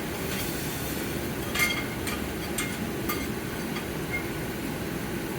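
A few light clinks with a short ringing note, from thermocouple hardware being handled and aligned in the furnace, over a steady background hum.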